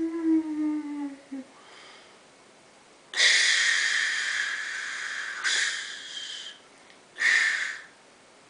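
A person imitating sound effects with the mouth: a falling, whistle-like tone that fades out about a second in, then three breathy hisses, the first long, the second shorter, the last brief.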